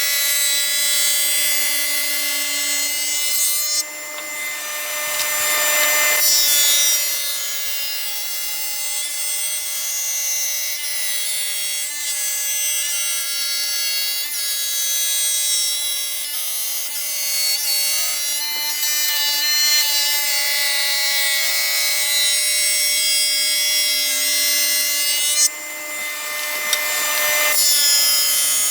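Table saw running with a dado blade stack, a steady whine, while two wood pieces are fed through it: a harsh cutting noise about four seconds in, lasting a few seconds, and again near the end.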